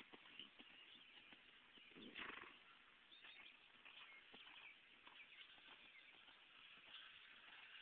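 Faint hoofbeats of a thoroughbred gelding cantering on arena sand, with a brief louder rush of noise about two seconds in.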